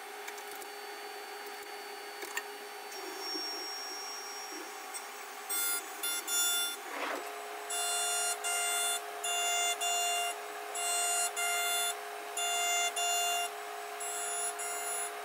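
CNC milling machine cutting aluminium soft jaws with a coated end mill under flood coolant: a steady machine hum and spray. From about five seconds in, a high ringing whine comes and goes about once a second as the cutter works the cut.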